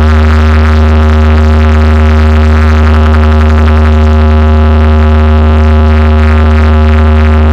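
Very loud, steady deep bass drone with a few fixed higher tones above it, played through a DJ competition sound system's speaker stacks.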